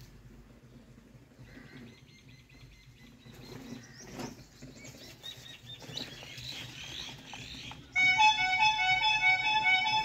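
Faint outdoor ambience with small birds chirping. About eight seconds in, instrumental background music with long held notes starts suddenly and is much louder.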